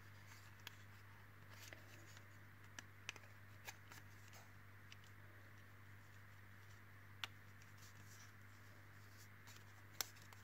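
Near silence with a steady low hum, broken by a few faint clicks and taps as a thin laser-cut wooden panel threaded with fine craft wire is handled; the sharpest clicks come about seven seconds in and near the end.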